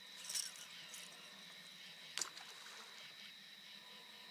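A fishing rod swishing through a cast about half a second in, then a single sharp click about two seconds in, over faint steady high-pitched tones.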